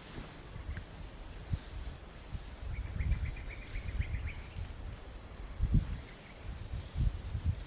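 Insects buzzing steadily in a high register, with a quick run of chirps about three seconds in. Low dull thumps and rumble come and go underneath, the loudest twice near the end.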